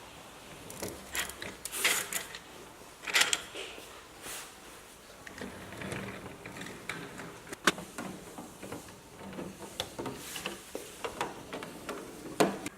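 Plastic toy construction vehicle being handled: irregular clicks, knocks and short scrapes of its plastic parts being moved and set down.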